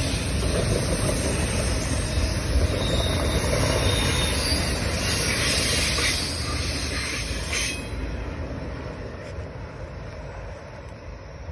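Manifest freight train cars rolling past close by: a steady rumble of steel wheels on rail, with a faint, high wheel squeal about three seconds in. A little under eight seconds in, the sound drops off and fades as the train draws away.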